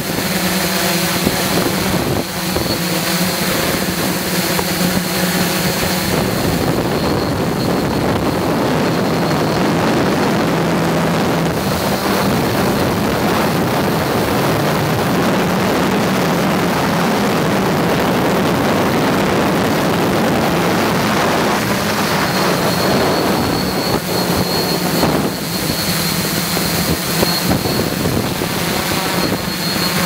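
Electric motors and propellers of a MikroKopter XY8 coaxial quadcopter (eight rotors) buzzing steadily in flight, the pitch wavering a little as the motors adjust, with wind rushing over the onboard microphone.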